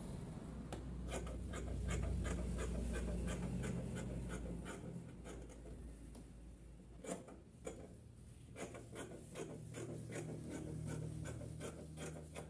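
Scissors snipping through lining fabric, a run of short, crisp cuts about three a second, with a short pause partway through before the cutting starts again.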